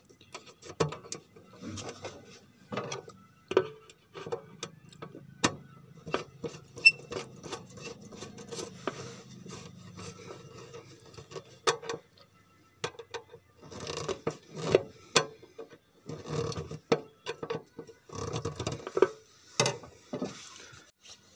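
Screwdriver working the screws of a plastic terminal block: irregular metallic clicks and short scrapes of the blade in the screw heads, with a short pause a little past the middle.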